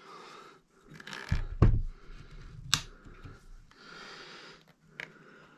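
Handling noise from a Brown Bess flintlock musket turned over in the hands: a dull knock about a second and a half in, then a sharp metallic click of the lock near the middle and a smaller click near the end, with hands rubbing on the wood and steel in between.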